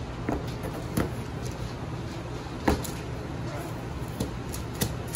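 Knife chopping through candy on a cutting board: a handful of sharp knocks at uneven intervals, over a steady low hum.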